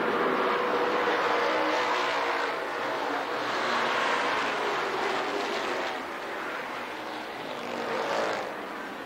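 Stock car engines racing around the track, growing louder as cars pass and then fading. The loudest passes come at the start, around the middle, and one brief pass near the end.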